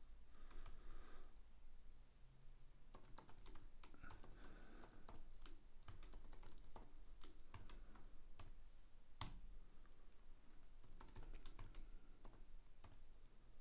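Typing on a computer keyboard: irregular light keystrokes with a short pause about two seconds in.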